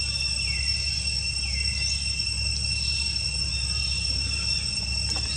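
Steady high insect drone, a continuous whine at two fixed pitches, over a steady low rumble.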